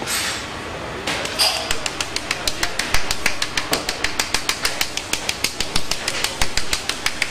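Wooden drum sieve shaken by hand to sift powdered sugar over a sheet of pastry: a quick, even run of light knocks and rattles, about six a second, starting about a second in.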